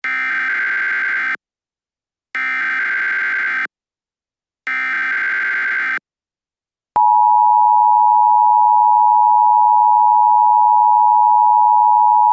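Emergency Alert System signal: three short bursts of SAME header data, each about a second and a half long, then the steady two-tone attention signal starting about seven seconds in. Together they mark the start of an emergency alert broadcast.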